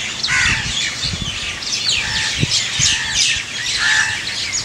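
Birds calling in a busy mix: many quick, high chirps that slide down in pitch, over and over, with a few lower, longer calls among them.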